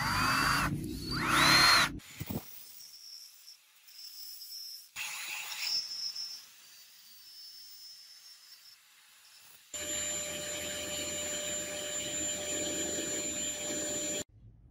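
Cordless drill whining up to speed twice in quick succession, then running steadily while the brass pen part in its chuck is pressed against sandpaper, with a rubbing hiss over the motor tone; it stops abruptly near the end.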